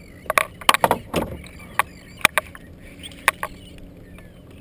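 Irregular sharp clicks and knocks of fishing gear being handled on a plastic kayak: a spinning rod, reel and landing net shifting and bumping during the fight with a fish. Several come close together in the first second, then single ones spread out further apart, over a low steady background.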